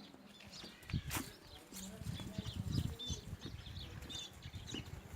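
Faint farmyard sounds: short high bird chirps scattered over irregular low thumps and rustling, with a sharp knock about a second in.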